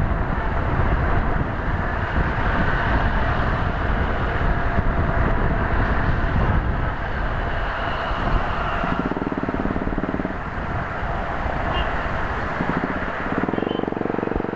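Hero Xpulse 200 4V's single-cylinder engine running while under way in traffic, mixed with wind rushing over the microphone. The sound comes in abruptly at the start, and there are a few short high beeps near the end.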